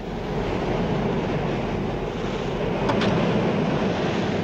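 Steady rushing of sea and wind, growing slightly louder at first, with two faint clicks about three seconds in.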